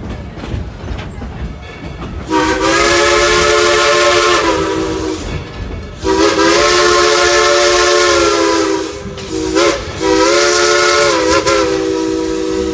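Coal-fired steam locomotive's whistle blowing a chord: two long blasts, a short one, then a long one, the long-long-short-long signal for a grade crossing. Before it, the train is heard running.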